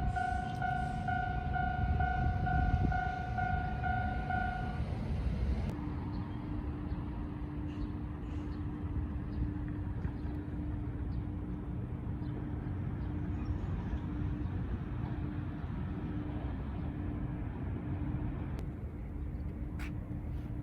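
Electronic level-crossing warning bell at the movable road bridge, a pulsing two-note-high 'kan-kan' tone that stops about five seconds in. A lower pulsing warning tone with short regular breaks then takes over, both over a steady low rumble.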